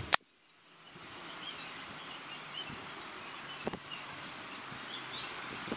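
An air rifle fires one shot right at the start: a single sharp crack. After it comes a steady outdoor hiss with faint chirps of small birds.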